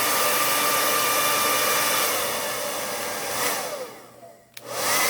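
Kiss handleless hair dryer blowing with a steady whine, then switched off: its motor winds down and the sound dies away. A click follows, and it starts again with a rising whine as the motor spins up.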